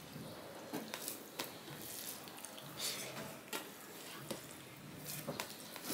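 Faint, soft squishing of cooked rice being mixed by hand on a steel plate, with a scattering of small clicks from fingers and mouth.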